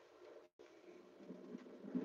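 Faint, steady running hum inside a high-speed train's passenger cabin, cutting out for a moment about half a second in.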